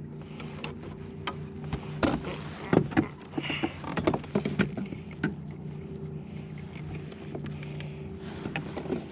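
Steady whine of an electric bow-mounted trolling motor holding the kayak in place, with scattered knocks and rattles of a landing net, rod and fish being handled against the plastic kayak hull.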